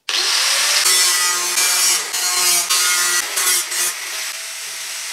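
Electric angle grinder cutting a hole through the thin sheet-metal top of an old gas stove: a loud, rasping grind over the motor's whine that starts abruptly and rises and dips as the disc bites into the metal.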